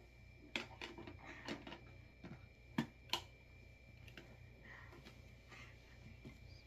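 Scattered light clicks and knocks in a small room, a few every second or so, the loudest two close together about three seconds in.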